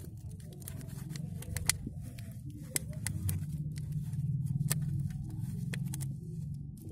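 Sticky tape being wrapped and pressed around the rim of an upturned glass sealed onto a plastic cup: scattered small clicks and crackles of the tape and glass being handled, over a steady low hum.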